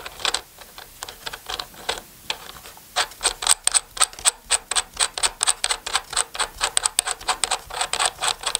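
Rapid clicking as the collet nut is screwed by hand onto the spindle of a Parkside PRSA 20-Li A1 cordless rotary cutter. The clicks are sparse at first and then come about five a second from about three seconds in.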